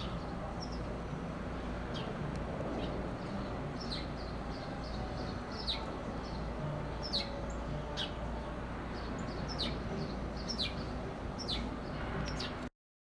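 Small birds chirping: a dozen or so short, sharp chirps, each falling quickly in pitch, over a steady low outdoor rumble. The sound cuts off abruptly near the end.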